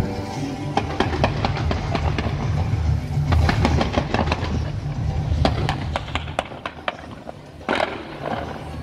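Fireworks going off: an irregular series of sharp bangs and crackles over a steady low rumble, with a longer noisy burst near the end.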